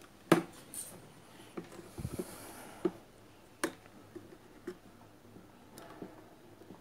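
Scattered sharp clicks and taps from handling a home theatre amplifier board and pulling off its plug-in wire connectors, the loudest just after the start, with a soft low thump about two seconds in.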